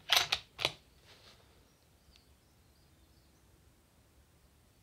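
A few sharp metallic clicks in the first second as the bolt of a suppressed Tikka T3 bolt-action rifle is worked and closed, then quiet outdoor background as the rifle is aimed.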